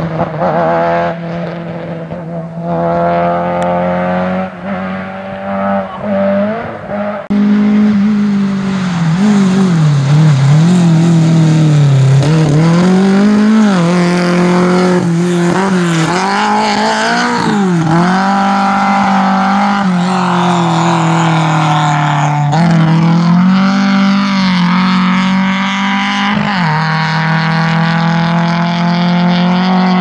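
Rally car engines revving hard, their pitch climbing and dropping again and again through gear changes and corners. The sound is louder from about seven seconds in.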